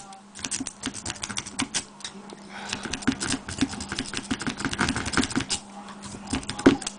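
A Twin Peak Bogota rake worked rapidly in and out of a Garrison 50mm brass padlock's keyway, a fast irregular run of small metallic clicks and scrapes as it bounces the pin tumblers.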